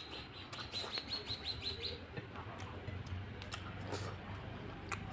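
A small bird chirping, a quick run of about a dozen short high notes over the first two seconds, followed by a few soft clicks over a low steady hum.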